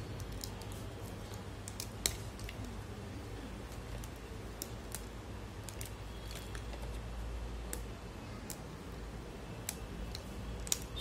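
Dry multani mitti (fuller's earth) clay slabs snapped and crumbled by hand: scattered sharp cracks and crunches at irregular intervals, the loudest about two seconds in.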